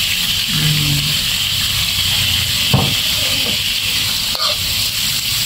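Squid and oyster sauce sizzling in a hot steel wok, a steady frying hiss. A metal spatula knocks against the wok about three seconds in and again a second or so later.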